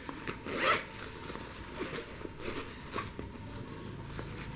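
Faint rustling and handling of a nylon laptop backpack, with one soft swish under a second in and a few light ticks and rubs of fabric and buckles.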